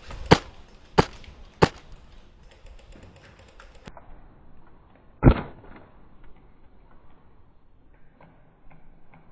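Wolverine MTW airsoft marksman rifle on high-pressure air firing 0.45 g BBs: three sharp shots about two-thirds of a second apart, then a single duller thud about five seconds in.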